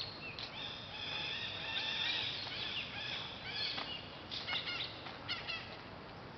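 Birds chirping and calling, many short high chirps and pitch-sweeping calls overlapping, over a steady outdoor background hiss.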